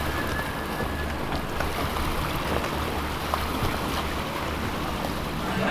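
Motorboat engine running steadily under a wash of water and wind noise.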